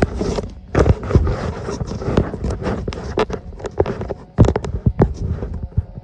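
Handling noise on a phone's microphone as the phone is moved and set down: irregular knocks, taps and rubbing close to the mic, several sharp knocks a second.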